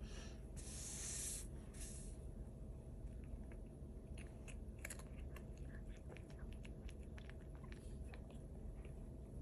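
Cat right at the microphone making small, faint clicking mouth sounds, with a short rustling burst about a second in.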